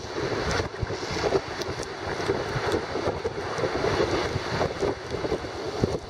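Heavy waves crashing against a concrete harbour jetty and seawater rushing across its walkway, with strong gusting wind buffeting the microphone.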